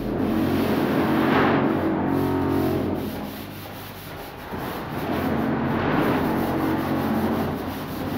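Long-handled drywall pole sander working over a puttied wall: a rough sanding rasp over a steady hum. It eases off around the middle and builds again.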